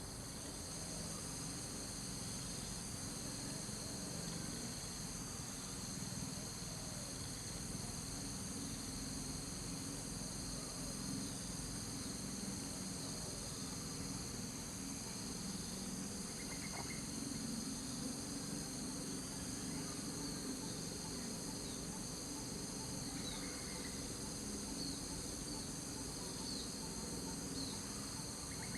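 A steady chorus of insects, a continuous high shrill in several layered bands, with a low rumble beneath it. A few faint short chirps come in over it towards the end.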